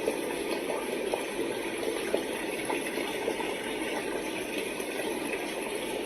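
Momcozy sunrise alarm clock's built-in sound machine playing a running-water sound: a steady rush of water dotted with small clicks.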